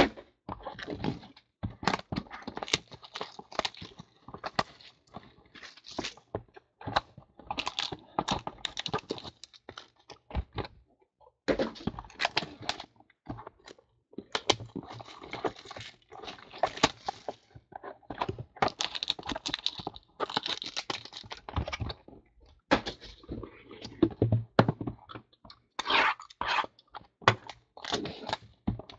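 Hands opening sealed trading-card boxes: wrapping tearing and crinkling, cardboard boxes knocked and set down on a table, in an irregular run of rustles, tears and thunks.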